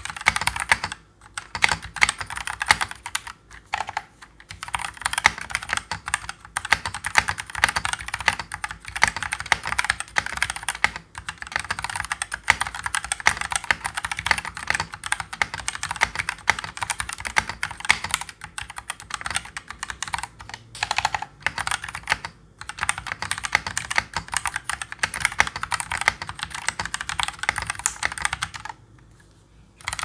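Fast, continuous typing on an E-Dra EK368W V2 mechanical keyboard fitted with E-Dra custom red (linear) switches and PBT Cherry-profile keycaps, a dense patter of key strokes with a few short pauses. The typing stops about a second before the end.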